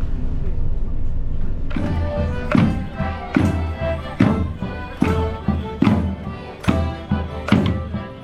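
A low rumble, then from about two seconds in, music with a steady beat of sharp strikes a little under one per second.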